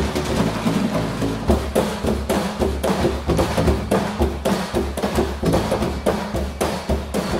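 Percussion ensemble playing with drumsticks: a fast, dense rhythm of sharp strikes over low bass notes.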